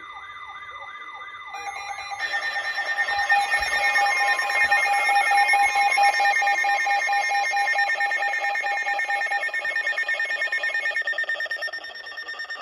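Several Emergency Alert System alert tones sounding at once and overlapping, announcing a severe thunderstorm warning. It starts with a steady tone plus a warbling tone that sweeps over and over; more steady tones join about two seconds in, and one of them drops out near the end.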